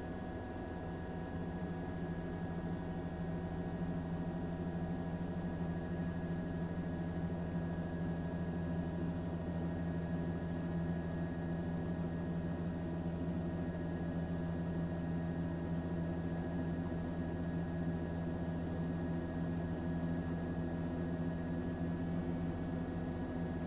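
Steady mechanical hum made of several constant tones over a noisy haze, unchanging throughout.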